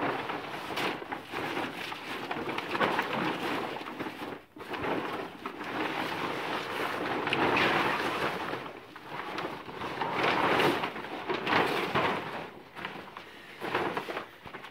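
A large plastic sheet rustling and crackling as it is unfolded, shaken out and spread over stony ground, in uneven surges that swell and fade.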